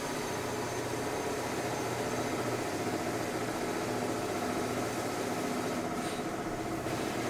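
Construction machinery running steadily, a constant engine drone with a steady hum.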